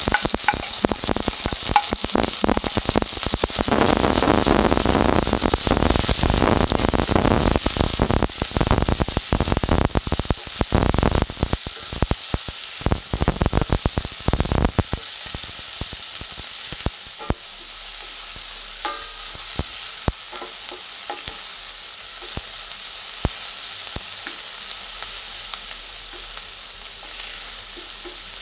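Diced red onions sizzling as they fry in a stainless steel pan. The sizzle is loud and crackling as they go into the hot pan, then settles to a quieter, steady sizzle about fifteen seconds in. A wooden spatula scrapes and taps against the pan as it stirs them.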